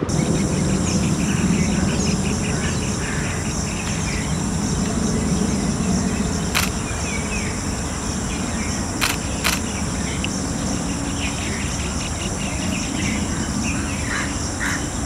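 Steady high-pitched insect drone of forest ambience over a low rumble, with faint scattered bird chirps and a few sharp clicks about a third and two-thirds of the way through.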